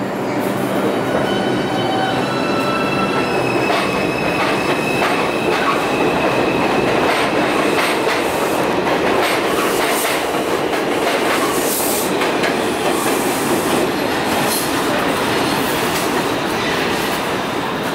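NYC Subway 2 train of R142 cars pulling out of an elevated station: the propulsion motors give a whine that steps up in pitch as the train accelerates, then the cars rumble and clatter over the rail joints with high wheel squeals as they pass and leave.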